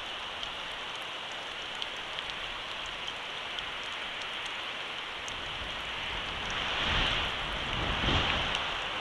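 Steady rain, with scattered sharp drop ticks. From about six and a half seconds in, gusts of wind rumble on the microphone and the sound swells for a couple of seconds.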